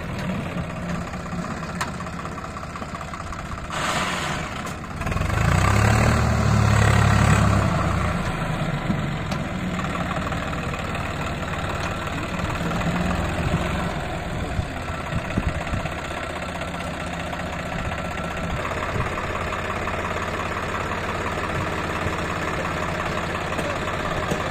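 Swaraj 744 FE tractor's three-cylinder diesel engine running as it hauls a fully loaded trolley, growing louder for about three seconds some five seconds in, then settling back to a steady run.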